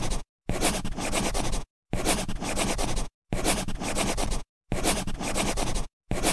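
Harsh scratchy noise in blocks a little over a second long, cut by short gaps of dead silence, repeating about once every second and a half.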